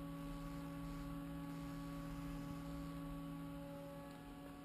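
Steady electrical hum of a Haas CNC milling machine standing with its spindle stopped: a few constant tones over a low background, easing slightly near the end.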